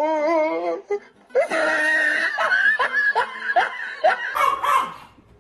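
People laughing hard: a wavering, warbling laugh at first, then rapid repeated bursts of laughter. Near the end the laughter stops and a short, different sound comes in over a low hum.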